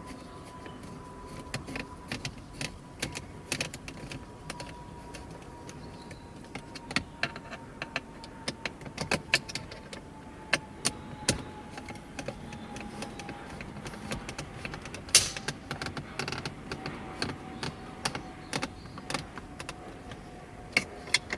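Screwdriver driving a small screw into a car's plastic dashboard trim cover, giving irregular clicks and light knocks of the tool and screw, with one louder knock about three-quarters of the way through. A faint steady whine sinks slowly in pitch underneath.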